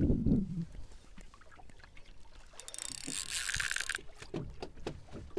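Water lapping against the hull of a small boat at sea, with scattered light knocks. About two and a half seconds in, a bright hissing rattle of rapid fine ticks lasts about a second and a half, then stops suddenly.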